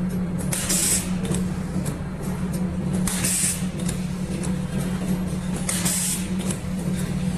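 CNC automatic stud welding machine running through its cycle: a steady hum, with a short hiss of compressed air released about every two and a half seconds (three times) and light clicks in between.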